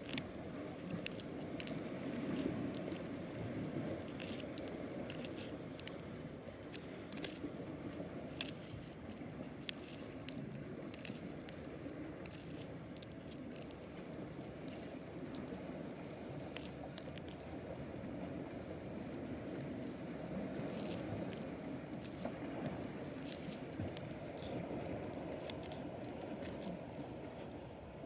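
Steel tweezers clicking and scraping against rock and gooseneck barnacle shells as the barnacles are pried out of a crevice: scattered sharp clicks and scrapes over a steady low rush.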